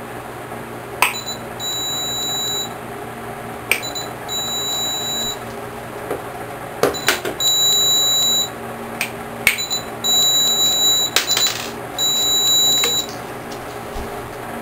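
Sharp clicks, each followed about half a second later by an electronic beep lasting about a second, five times over. The beep is a speedlight flash signalling that it has recharged after being fired by the sound-triggered circuit.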